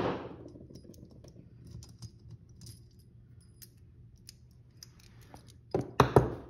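Small light clicks and taps of a nut driver and small metal parts against a snowmobile carburetor body while screws are worked loose, scattered and irregular. A loud knock at the very start and a few louder knocks about six seconds in stand out over them.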